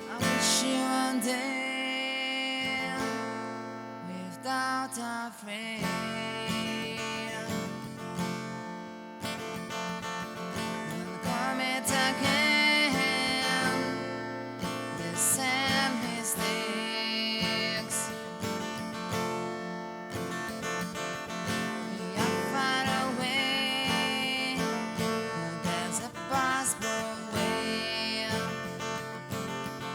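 Acoustic guitar music, strummed, playing an instrumental passage with a melody line over the chords.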